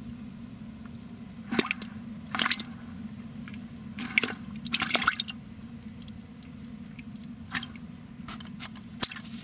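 Freshly caught bass flopping in a bucket with a little water: about six short wet slaps and splashes, spaced irregularly, over a low steady hum.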